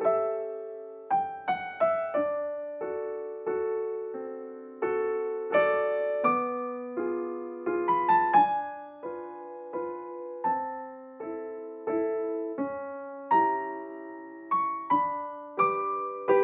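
Background piano music: a slow, gentle melody of single notes and chords, each struck and fading away.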